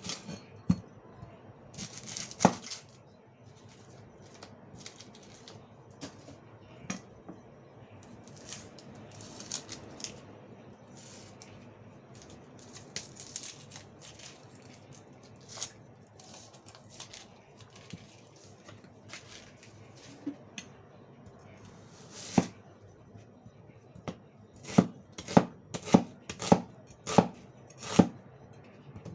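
Knife chopping a red onion on a cutting board, a run of even strokes at about two a second near the end, after scattered handling and tearing sounds from peeling it.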